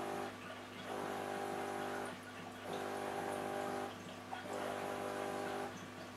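Background music: held chords, each about a second long, repeating at even spacing with short breaks between them, over a steady low hum.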